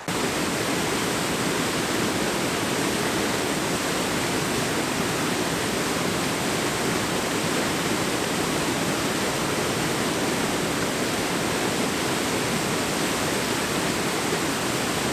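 Rushing water of a small mountain creek: a steady, even rush of flowing water that begins abruptly and holds unchanged.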